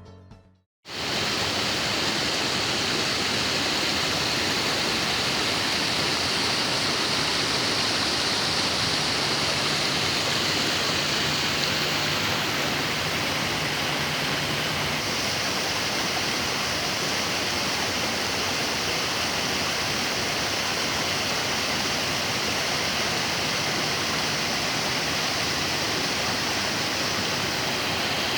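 Waterfall: a steady rush of falling water, starting about a second in, its hiss changing slightly about halfway through.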